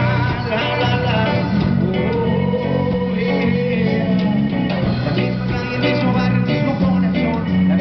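Live rock band playing: electric bass, drums, electric guitar and keyboard through small amplifiers, with a man singing into a handheld microphone.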